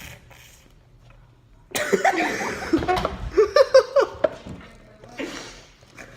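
A person coughing in a fit, a string of harsh coughs one after another starting a little under two seconds in and lasting about two and a half seconds, brought on by the heat of spicy chicken.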